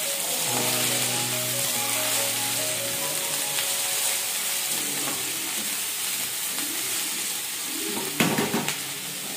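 Chopped leafy greens (saag) sizzling as they are stir-fried in a steel kadai, with a spatula stirring and scraping the pan. A louder clatter of scraping comes about eight seconds in.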